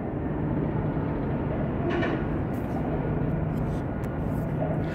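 Steady low rumble of vehicle traffic, with an engine hum holding one low pitch through the second half.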